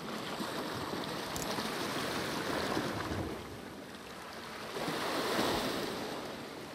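Sea waves washing against a rocky shore, swelling twice.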